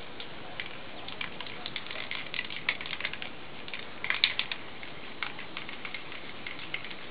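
Aerosol spray can of clear lacquer: the mixing ball rattles inside it in short, irregular clicks. A quick, louder burst of rattling comes about four seconds in as the can is shaken.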